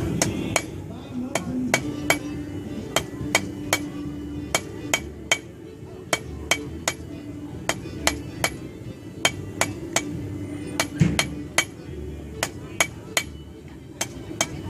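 Blacksmith's hammer striking metal on an anvil in a steady run of blows, about two to three a second, each with a short ring.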